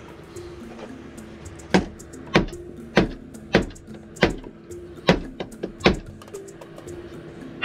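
Soft background music with steady held notes, over which come about seven sharp knocks, evenly spaced about two-thirds of a second apart, starting a couple of seconds in.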